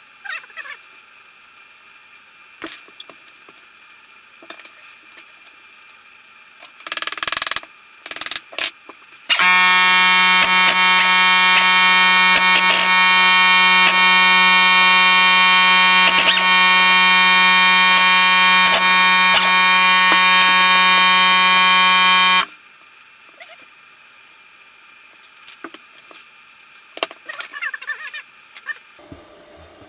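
Scattered clinks and knocks of work on metal, then a loud, steady, unchanging buzz that starts and stops abruptly and lasts about thirteen seconds.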